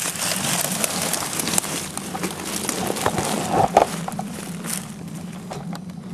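Dry leaves, twigs and branches crackling and snapping as people crawl through dense brush, a busy run of small cracks with a louder cluster about three and a half seconds in.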